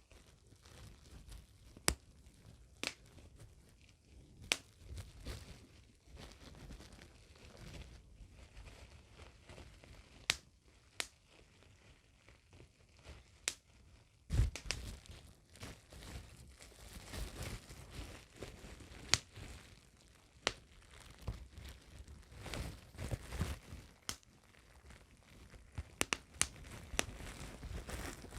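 Plastic bubble wrap crinkling as it is handled, with sharp single pops from bubbles bursting every second or so.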